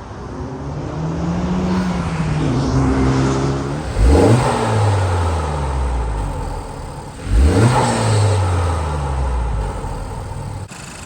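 Honda Civic Type R (FL5) 2.0-litre turbocharged four-cylinder revving with a K&N drop-in air filter fitted. The pitch rises and falls gently, then climbs sharply twice, about four and seven seconds in, each time easing slowly back down.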